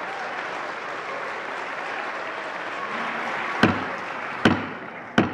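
Applause from a crowd of people in a large hall, dying away toward the end, with three sharp knocks about three and a half, four and a half and five seconds in.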